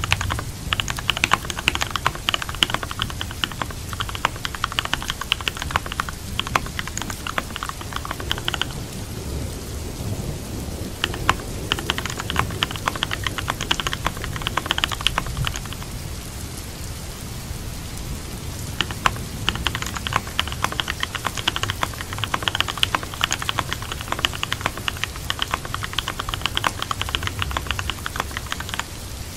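Fast typing on a computer keyboard over steady rain. The typing comes in three runs, stopping for a couple of seconds twice, while the rain goes on underneath.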